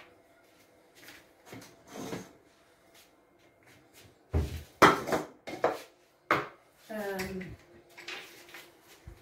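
Kitchen clatter: several sharp knocks of dishes and utensils being handled on a counter, the loudest a little over four seconds in, with a few lighter knocks after.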